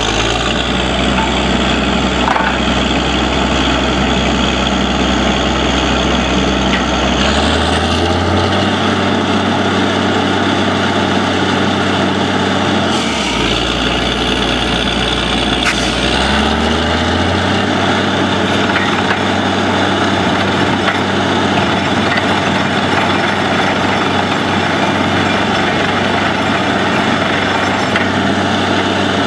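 Truck-mounted borewell drilling rig's diesel engine running steadily, its speed rising about a quarter of the way in, dipping briefly near the middle and rising again soon after.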